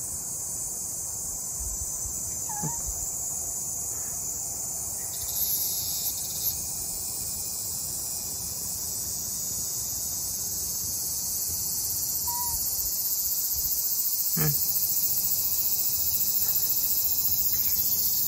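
Steady high-pitched chirring of insects, with a faint brief sound about fourteen seconds in.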